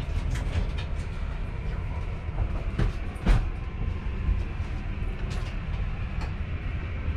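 Deep, steady rumble of the ferry Nuraghes under way, heard inside a passenger cabin. A cabin door latch clicks and the door shuts with a knock about three seconds in.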